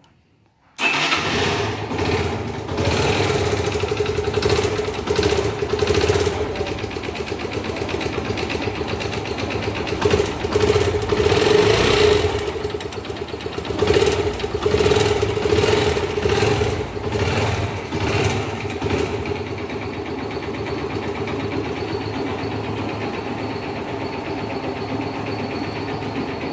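Yamaha Factor 125 single-cylinder four-stroke motorcycle engine started about a second in, blipped a few times and then left running steadily. It has a noise from inside the engine that came on after it ran low on oil, which the mechanic thinks is most likely a damaged piston.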